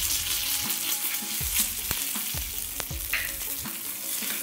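Cumin seeds and curry leaves sizzling in hot oil in a nonstick frying pan as a tempering (tadka) is made, with repeated light knocks and scrapes of the stirring spoon against the pan.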